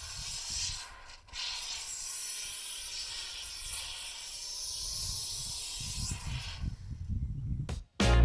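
A steady hiss with a low rumble beneath it, broken briefly about a second in and fading out near the end.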